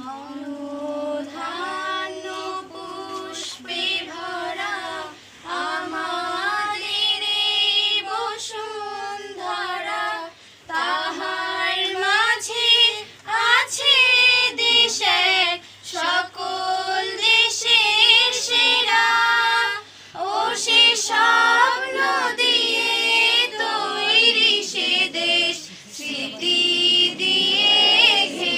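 A group of schoolchildren singing a Bengali patriotic song together, voices only, with no instruments.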